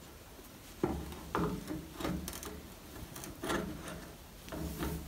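Light knocks and clicks of the exercise bike's handlebar and console mount being handled and seated onto the handlebar post, about half a dozen irregular taps.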